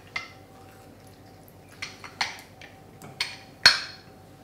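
A handful of light clicks and knocks from bar tools and a hand lime squeezer being handled on a bar counter, the loudest near the end.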